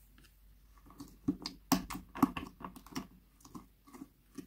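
An irregular run of sharp clicks and small sticky pops, starting about a second in, as fingers dig a lump of glittery slime out of a compartment of a plastic slime tray.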